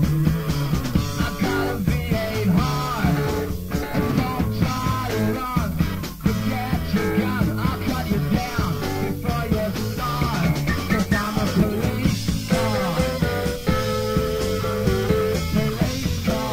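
Rock band playing live, with notes that bend up and down over a steady beat.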